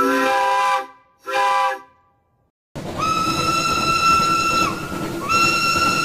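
Two short blasts of an Aermore brass four-chime whistle sounding a chord. Then a single-note steam locomotive whistle, with a strong steam hiss, blows a long blast that breaks off briefly and sounds again.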